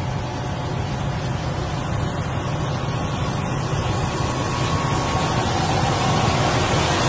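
Diesel engines of a convoy of heavy semi-tractors hauling an oversized load, a low steady drone with road noise that grows gradually louder as the trucks draw near.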